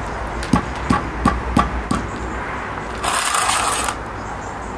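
Hammer tapping a freshly laid concrete block down into its mortar bed to bring it level: five short, sharp knocks in the first second and a half, about three a second. About three seconds in comes a scrape lasting almost a second.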